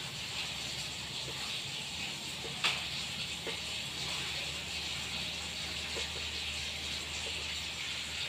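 Steady hiss of running water, with a low steady hum underneath and a few light clicks, the clearest about two and a half seconds in.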